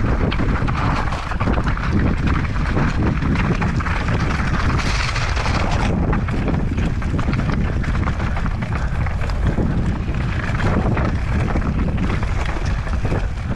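Mountain bike running down a rough, rocky trail: tyres crunching over gravel and rock and the bike rattling with many small knocks, under steady wind rush on the microphone. A brief louder hiss comes about five seconds in.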